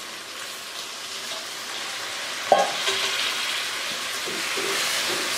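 Chicken curry sizzling in a pot as a little water is poured in and stirred with a wooden spatula, the sizzle growing louder as the water meets the hot oil and masala. A sharp knock about two and a half seconds in.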